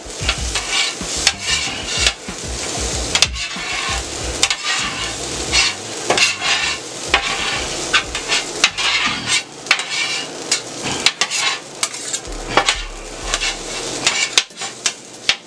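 Fried rice sizzling on a steel flat-top griddle, just seasoned with soy sauce, while two metal spatulas scrape, chop and toss it, with frequent clacks of the blades on the steel.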